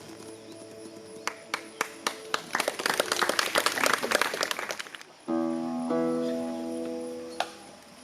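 Live sound-healing music: scattered clicks build into a fast, dense rattle. About five seconds in, a held chord of steady tones starts suddenly, then stops with a click near the end and fades.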